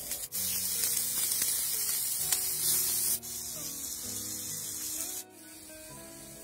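Cooking oil sizzling and spitting on a hot grill grate as it is brushed on, then raw intestines sizzling on the grate as they are brushed with oil. The sizzle is loudest for the first few seconds and drops at sudden cuts.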